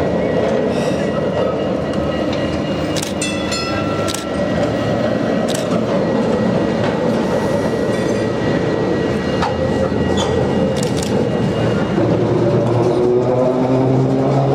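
Historic electric tram running on street rails toward and past, its steel wheels rumbling on the track, louder near the end as it passes close, with a rising motor whine. A brief high tone sounds about three to four seconds in.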